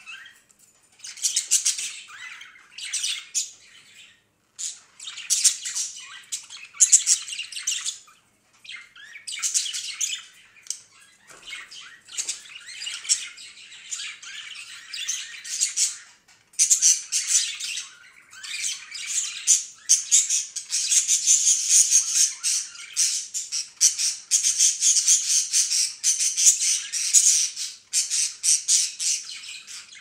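Budgerigars chattering and squawking in bursts of a few seconds, running into a near-continuous warbling chatter from about halfway through.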